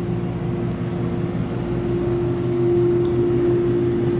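Steady mechanical hum of a running appliance, one held tone over a low rumble and hiss, a little louder in the second half.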